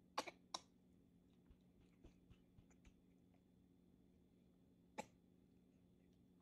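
A toddler gives two quick short coughs, then a single cough about five seconds later. Faint small clicks and a steady low hum lie between.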